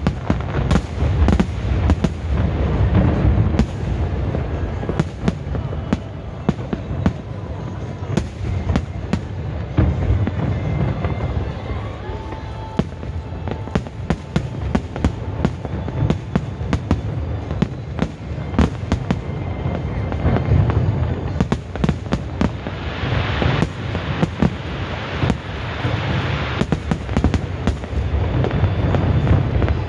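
Fireworks display: a continuous barrage of shells bursting, with many sharp bangs in quick, irregular succession over a low, rolling boom.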